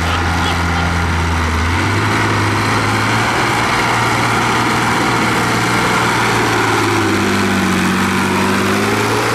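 Tractor engine running, its pitch stepping to a new level about two seconds in, with a rising and falling pitch near the end.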